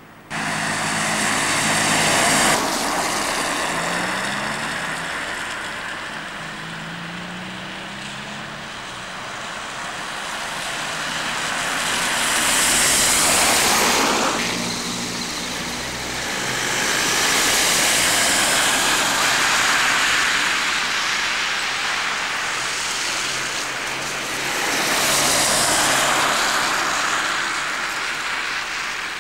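Cars passing one after another on a wet, slushy road: tyre hiss swells and fades several times, with a low engine hum under the first passes. The sound cuts in suddenly just after the start.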